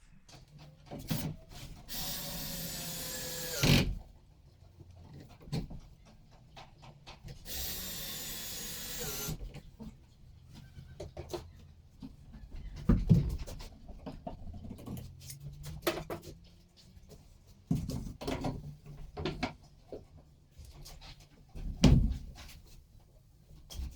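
Workshop sounds during woodworking: a power drill runs twice, for about two seconds each, its pitch dropping as it works. Then come scattered knocks and thumps of wood being handled, the loudest about 13 and 22 seconds in.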